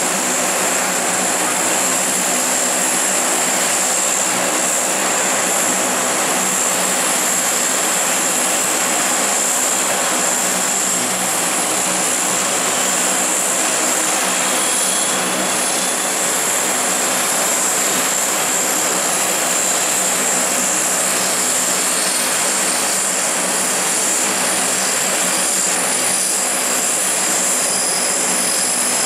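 Lockheed C-130 Hercules' four turboprop engines running steadily on the ground with the propellers turning: a high turbine whine over the propeller drone, with a fainter whine slowly rising in pitch partway through.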